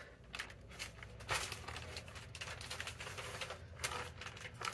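Faint scattered rustling, rubbing and light taps of hands feeling around the pipe fittings and the top of an electric water heater to check for a leak.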